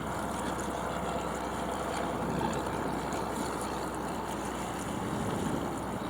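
Steady wind and water noise on a small sailboat under sail, heard through a mast-mounted camera's microphone as an even rush.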